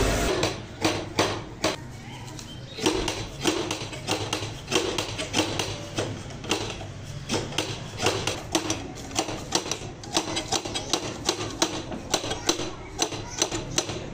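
Irregular knocking and clacking of hand tools on a wooden brush block packed with coir fibre, a few sharp strikes a second.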